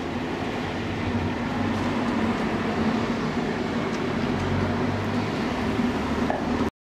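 Hythe Pier Railway's narrow-gauge electric train running, a steady low hum under a rolling wash of wheel noise, cutting off suddenly near the end.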